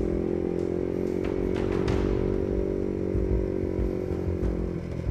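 Motorcycle engine running at steady revs while riding, heard from the bike's own camera, with its pitch dropping slightly near the end as the throttle eases. A few brief knocks or clicks come about one to two seconds in.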